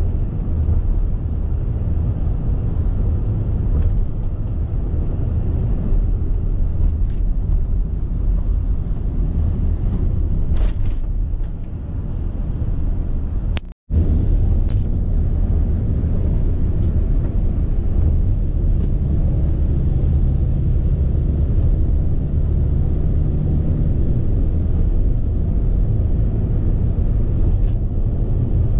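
Steady low rumble of road and wind noise inside a moving car. It drops out for a moment about halfway through.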